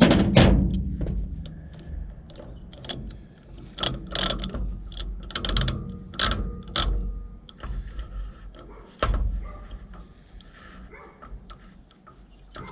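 Irregular metallic clicks and clanks of hand tools and heavy truck starter-motor parts being handled during disassembly, with the loudest knock right at the start.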